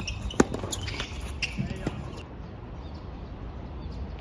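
Tennis rally: sharp pops of a tennis ball struck by rackets and bouncing on the court, a few in the first two seconds, the loudest about half a second in.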